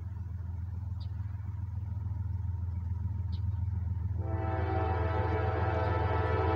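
Approaching freight train: a low rumble that grows steadily louder, then about four seconds in the locomotive's horn starts sounding a steady multi-note chord that holds on.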